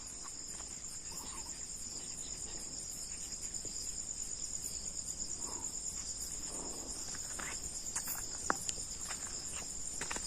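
Crickets chirping, a steady high trill, with a couple of faint clicks about eight seconds in.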